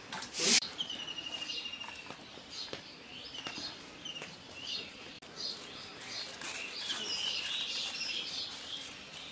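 Small birds chirping, with short swooping calls and a rapid trill repeated several times. A brief splash of water sounds just at the start.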